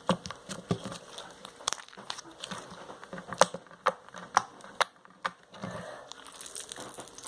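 Store-bought orange slime being squeezed and stretched by hand, giving off irregular sharp little clicks and pops, the sharpest a little over three seconds in.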